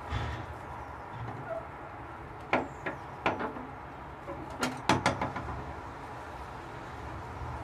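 Cat rapping a black metal door knocker on a front door, lifting it with its mouth and letting it fall: sharp metal knocks in two quick groups of about three, one before the middle and one just after.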